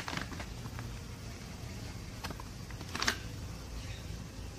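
Small metal pet-food cans being handled in a cardboard box: a cluster of light clicks at the start, then two sharper knocks a little past two and three seconds in, over a steady low hum.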